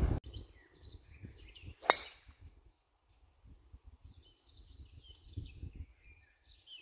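A golf driver striking a ball off the tee: one sharp crack about two seconds in. Faint birdsong follows in the second half.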